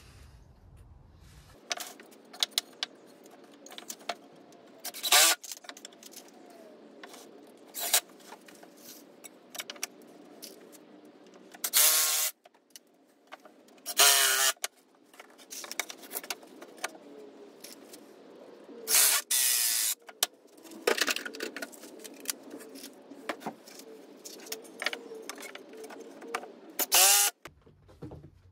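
A cordless drill-driver whirring in about half a dozen short bursts as it drives screws to join cut wooden triangles, with small knocks and clicks of wood and tool being handled between the bursts.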